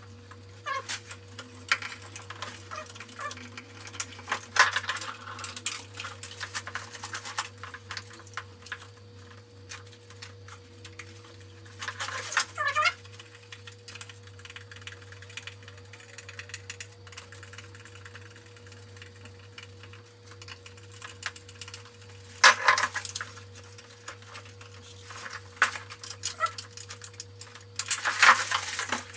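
Handling noise of a recessed light fixture being wired by hand: rustling of the electrical cable and small plastic and metal clicks from the fixture's junction box, with several louder bursts of handling.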